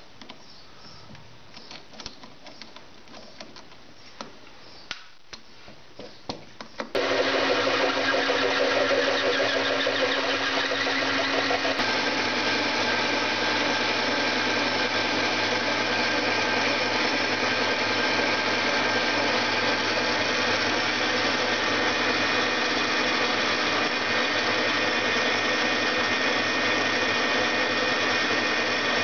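A few light clicks and taps, then about seven seconds in a metalworking machine's motor switches on abruptly and runs steadily; a few seconds later its tone changes slightly.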